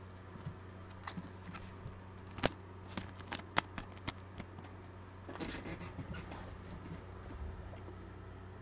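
Football trading cards being handled by hand. A series of sharp clicks and taps, the loudest about two and a half seconds in, is followed by a brief rustle of cards a little past five seconds, over a steady low hum.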